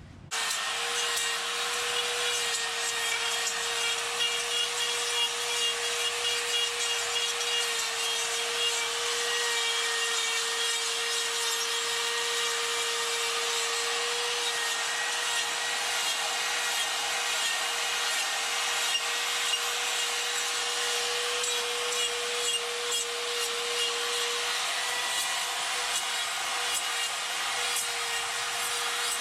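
Die grinder with a 1/2-inch Saburrtooth flame burr grinding wood: a steady high motor whine over a continuous rasping of the burr cutting the carving's surface. It starts just after the opening and runs on without a break.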